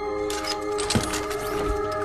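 Film score of sustained tones, overlaid by a cluster of sharp clicks and crackling hits, with a low thump about halfway through.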